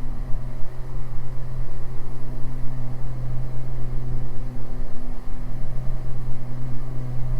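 Twin engines and propellers of a Beechcraft G58 Baron droning steadily at climb power, heard from inside the cockpit. Under the steady low drone there is a slow swelling and fading every second or two.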